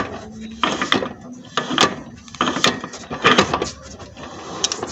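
Worn tripod joint on a 2001 Honda Civic's drive shaft clicking and clunking in repeated bursts a little under a second apart as the shaft is turned; the joint has play and is making the noise the owner traced to the gearbox.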